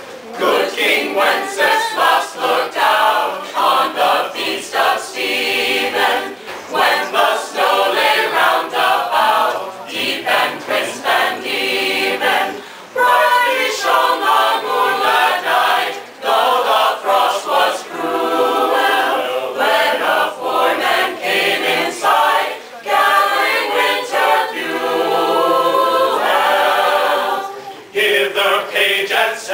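A small a cappella choir of men's and women's voices singing a Christmas carol, phrase after phrase with short breaths between.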